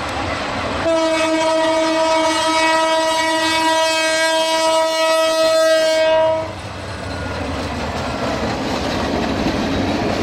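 Diesel locomotive's horn sounding one long blast on a single steady pitch, starting about a second in and lasting about five and a half seconds. The horn sits over the running noise of the passenger train's wheels on the rails, which carries on alone after the horn stops.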